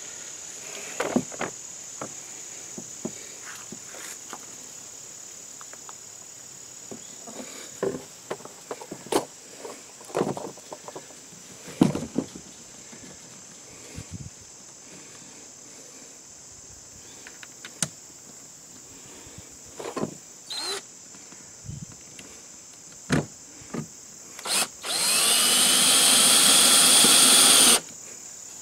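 Cordless drill driving a screw for about three seconds near the end, its whine rising as it spins up, then holding steady and cutting off suddenly. Before it come scattered clicks and knocks of handling the plastic inlet and tools, and crickets chirp steadily in the background.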